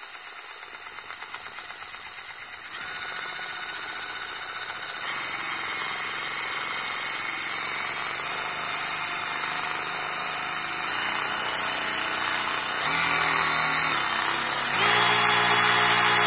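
Milwaukee M12 FUEL brushless 3/8 in. cordless ratchet (2557) running free with no load, its motor whine stepping up in speed and loudness through several trigger positions, from a slow crawl to full speed near the end.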